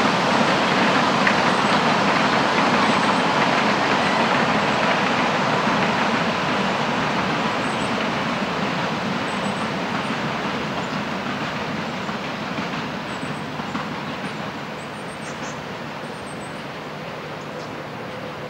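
Narrow-gauge steam train running past on a forest line, the sound of the train fading steadily as it moves away.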